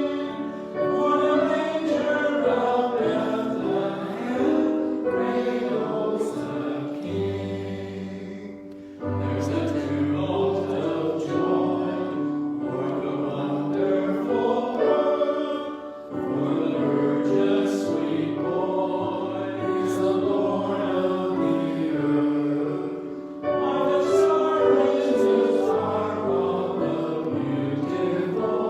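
Choir singing with music, phrase by phrase, with brief pauses between phrases about a third of the way in, just past halfway, and about four-fifths of the way through.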